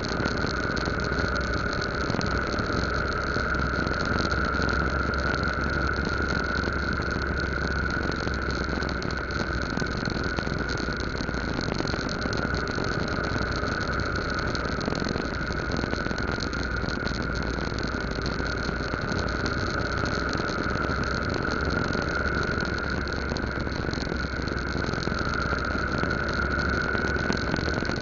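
Yamaha Lagenda 115Z underbone motorcycle's small four-stroke single running steadily while riding slowly past jammed traffic, its engine note blended with steady road noise.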